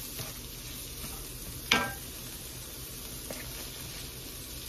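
Chopped bell peppers and green onion sautéing in butter in a hot skillet, sizzling steadily. One short, louder knock comes about a second and a half in.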